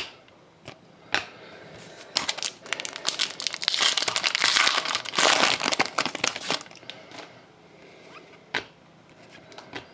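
A 2012 Panini Prizm football card pack's wrapper being torn open and crinkled for about four seconds. There are a few light clicks of cards being handled before and after.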